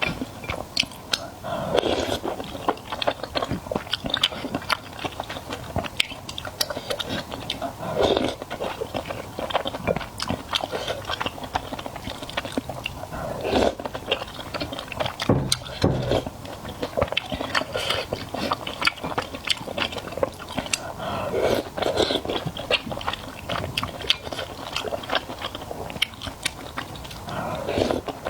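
A person chewing and biting food close to the microphone, with many small crunching clicks and a fuller swell of chewing every few seconds.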